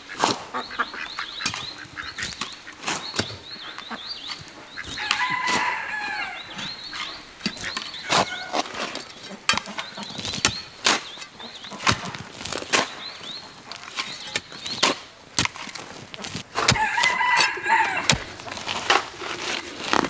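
Hoe and shovel blades striking and scraping into dry soil in a run of sharp knocks. Poultry call in two bursts, about five seconds in and again near seventeen seconds.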